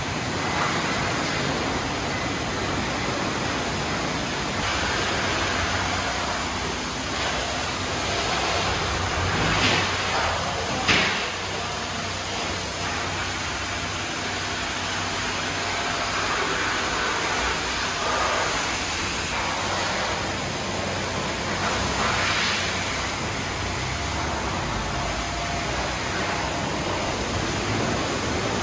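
Steady rushing noise of a large, echoing car wash hall, with the swish of a wash mitt scrubbing soapy car paint now and then and a sharp knock about eleven seconds in.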